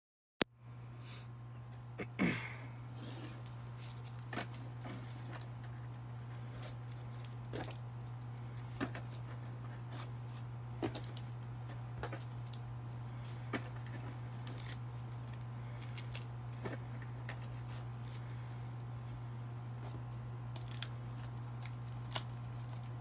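Room tone: a steady low hum with faint, irregular clicks and taps every second or two, and a sharp click just after the start.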